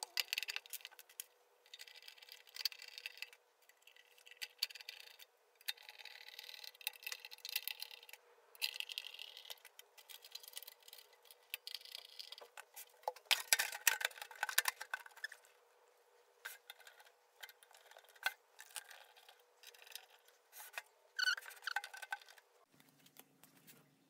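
Light metallic clicks, scrapes and knocks as a microwave oven's magnetron is handled and fitted back into the oven's sheet-metal housing, with a louder clatter about halfway through.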